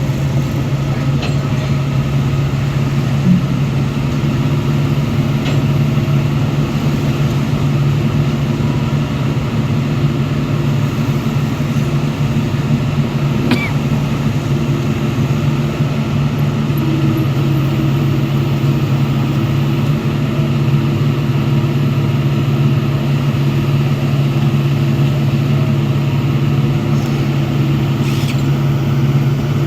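Heavy earthmoving machine's diesel engine running steadily at constant speed, a loud unbroken low drone, with a single click about halfway through.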